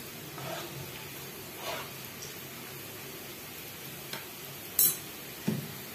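Chopped onion and ginger frying in coconut oil on a low flame, a gentle steady sizzle. A single sharp click nearly five seconds in.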